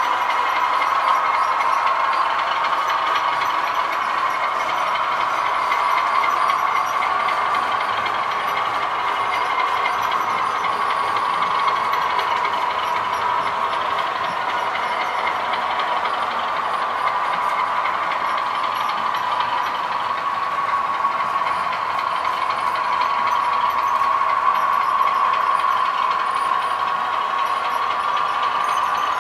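Sound-fitted OO gauge model diesel locomotive: a DCC sound decoder plays a diesel engine running through the model's small speaker, a steady drone that wavers slightly in pitch.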